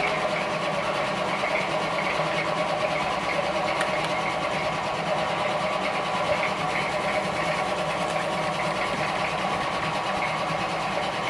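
Steady mechanical hum of a running motor, holding an even pitch, with one faint click about four seconds in.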